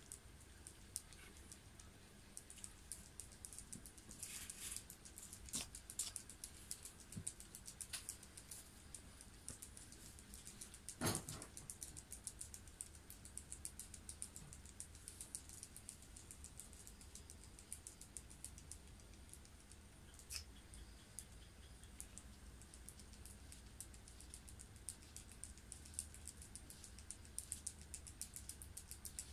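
Faint, irregular small clicks and taps in a quiet room, with one louder knock about eleven seconds in.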